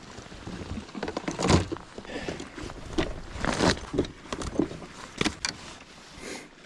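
Irregular clicks, knocks and rustles of gear being handled close to the microphone, coming in uneven bursts and loudest about a second and a half in.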